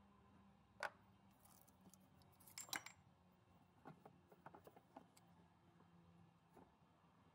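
Faint, scattered clicks and knocks of hands handling a removed plastic coolant bypass elbow and working at its fitting in the engine bay: one click about a second in, a louder clatter near three seconds, then a run of lighter ticks.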